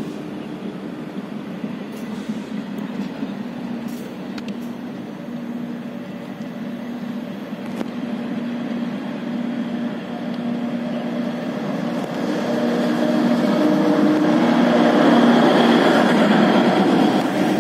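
Diesel multiple-unit train running, with a steady low engine drone, growing louder over the last few seconds.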